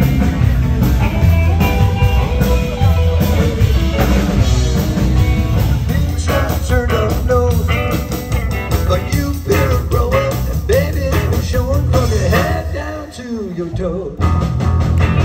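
Live band of electric guitar, upright bass and drum kit playing. Near the end the low end drops out for about a second, then the full band comes back in.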